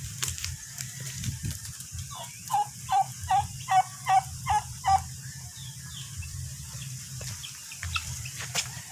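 Poultry calling: a run of about eight loud, evenly spaced calls, roughly three a second, starting a couple of seconds in and stopping about halfway through.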